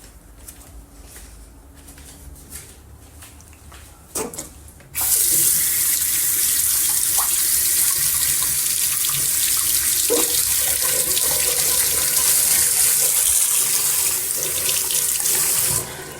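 A water tap is turned on about five seconds in and runs steadily into a sink, then is shut off near the end. Before it, one short hiccup is heard about four seconds in.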